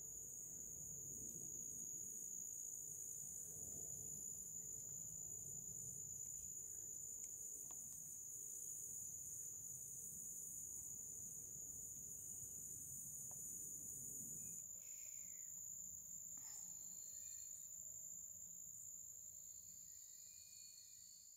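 Faint, steady high-pitched insect chorus, a continuous shrill trill with hiss above it, typical of crickets in the undergrowth. About 15 seconds in, the upper hiss thins out while the steady high tone carries on.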